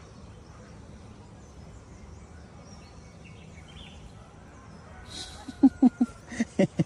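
Faint steady background noise, then about five and a half seconds in a cartoon monkey sound effect: a quick run of short, sharp hooting calls.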